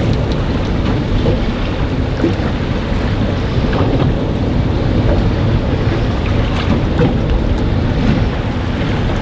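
Strong wind, over 20 knots, buffeting the microphone on an open boat at sea: a steady low rumble with the wash of the sea beneath it.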